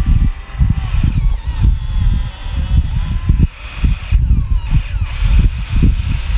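Heavy earthmoving machinery at work: a low, uneven diesel rumble with faint whines rising and falling above it.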